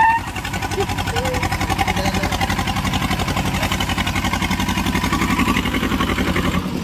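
Sonalika DI 730 tractor's diesel engine working hard under heavy load with a steady, fast chug, pulling against an SUV in a tug-of-war.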